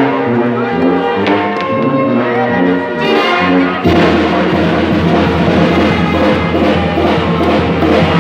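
Live brass band playing dance music, with a tuba or sousaphone carrying a stepping bass line under the horns. About four seconds in, the sound turns abruptly fuller and denser as the whole band plays together.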